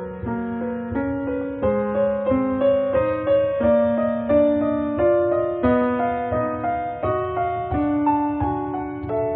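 Background piano music: a gentle melody of struck notes, changing a few times a second.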